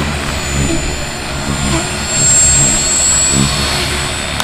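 Turbine whine from the sound module of a scale Lama RC helicopter, high and steady over the noise of its spinning rotor. The whine swells briefly about halfway through.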